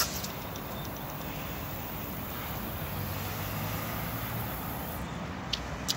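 Steady outdoor background of road traffic and wind, with a faint high hiss that cuts off about five seconds in and two light clicks near the end.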